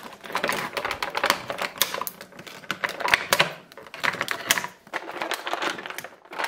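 Rigid clear plastic blister packaging crackling and clicking as it is handled and bent, with action figures pulled loose from it, in a dense, irregular run of sharp clicks.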